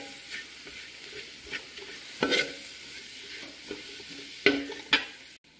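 A steel spoon stirring and scraping a spiced onion-tomato masala frying in a stainless steel pot: a steady sizzle with a few louder scrapes against the pot, about two seconds in and twice near the end. The chili and coriander powders are being fried until their raw smell cooks out.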